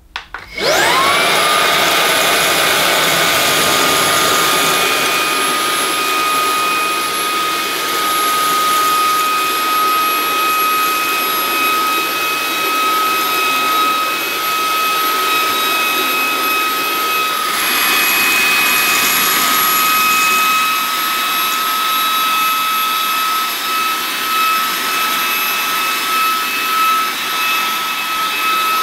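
Shark WandVac cordless handheld vacuum switching on, its motor rising in pitch in the first second to a steady high whine. It then runs while sucking up lentils and grit from a tiled floor, with a stretch of rougher noise a little past halfway and a wavering level near the end.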